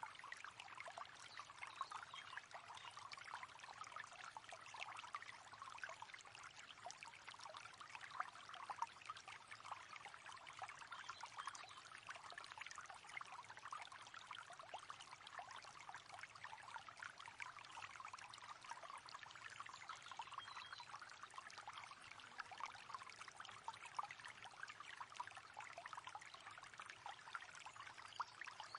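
A river's water running and trickling over stones: a faint, steady babble of small splashes.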